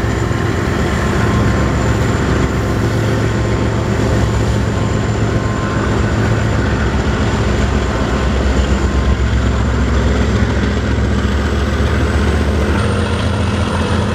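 A BNSF double-stack intermodal container train rolls past close by, its well cars' wheels making a steady, loud rumble on the rails. A thin, high, steady whine sits above the rumble.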